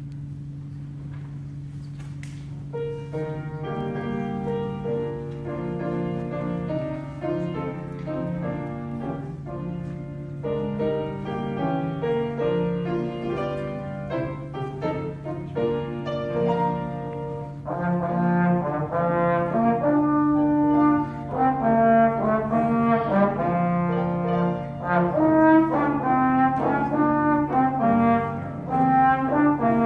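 Solo trombone playing a melody with piano accompaniment, coming in about three seconds in and getting louder about halfway through.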